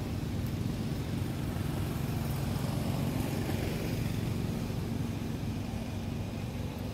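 A motor vehicle engine running steadily as a low hum, swelling a little in the middle.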